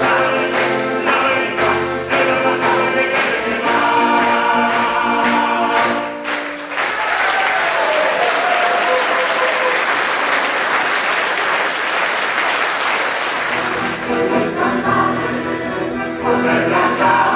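Mixed choir singing with accordion and acoustic guitar accompaniment and a steady beat. The song ends about six seconds in and the audience applauds for several seconds, then choir and accordion start again near the end.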